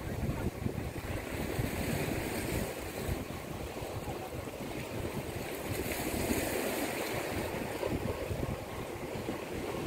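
Wind buffeting the microphone in gusts over the steady wash of small waves breaking on a rocky shore.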